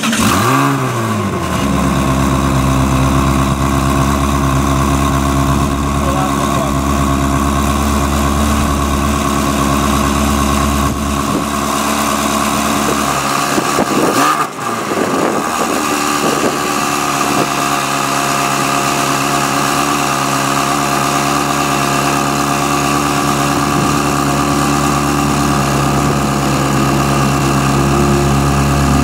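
Ferrari 360 Challenge Stradale's 3.6-litre V8 idling through its exhaust. The revs fall away about a second in, then settle to a steady idle. Near the middle there is a short rise and fall in revs before it settles again.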